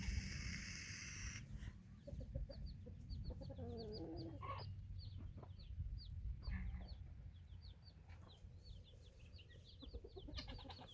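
Chicks peeping in a rapid string of short high notes while a hen clucks low a few times, with wind rumbling on the microphone.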